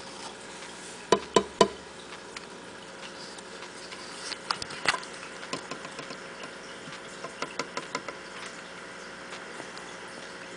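Irregular sharp clicks and taps: three close together about a second in, then scattered clusters, over a faint steady hum.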